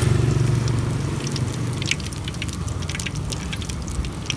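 Beaten egg frying in hot oil in an aluminium wok for telur gulung, sizzling with many scattered sharp crackles and pops.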